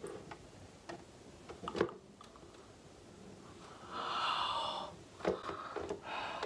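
A few faint clicks and creaks from a corkscrew and a crumbling wine cork. About four seconds in comes a second-long breathy rush of air at the wine bottle's mouth.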